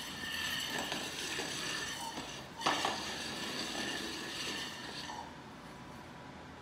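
Metal frying pan scraping and clattering over a hard vinyl floor as a ferret moves it, with one louder clank about two and a half seconds in.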